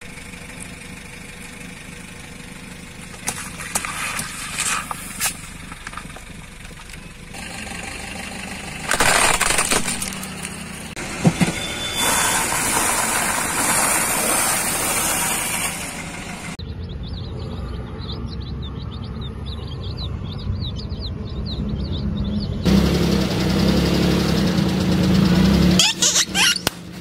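A car's engine runs at low speed while its tyre rolls over a series of objects: plastic cups, dry noodles and rubber toys. Sharp cracks and crunches come as they are crushed. The sound changes abruptly several times, where one short clip gives way to the next.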